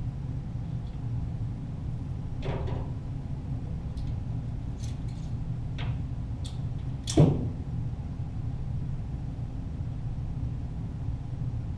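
A few scattered sharp cracks of .22 Walther GSP target pistols firing at the targets, heard from down by the targets, with the loudest crack about seven seconds in. A steady low hum underlies them.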